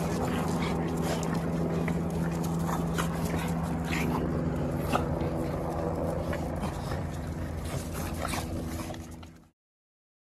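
French bulldog adults and puppies scuffling together, with short dog sounds and scattered small clicks, over a steady low hum. The sound cuts off suddenly about nine seconds in.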